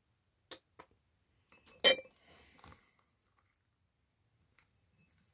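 Small hard objects being handled on a workbench: two light clicks, then one sharper clink just before two seconds in, followed by a faint rustle.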